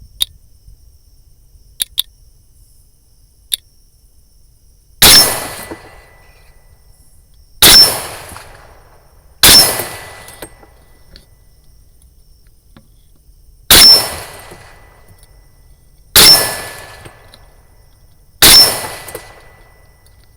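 Six rifle shots from a .300 Blackout AR-style rifle firing Winchester 150-grain Deer Season XP, spaced unevenly two to four seconds apart, each a sharp crack that rings out for about a second. A few faint clicks come before the first shot.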